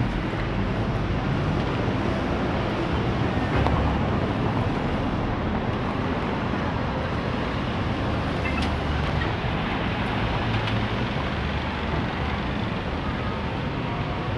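City street traffic: cars passing and idling close by, a steady rumble of engines and tyres.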